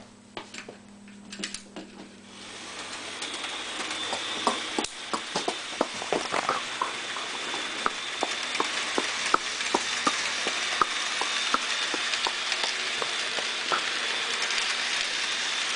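Model train running on its track: a steady hissing motor whine that swells in about two seconds in and then holds, with light irregular clicks from the wheels on the rails.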